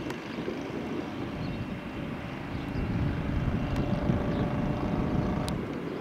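Twin turbofan engines of a Cessna Citation XLS+ business jet on the runway: a steady rumble with a whining tone that comes in about halfway through. The sound swells louder in the middle and eases just before the end.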